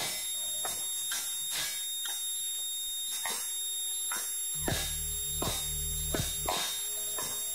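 Electronic noise music: several steady high-pitched tones with sharp swooping clicks about twice a second. A low buzz comes in a little past halfway and lasts about two seconds.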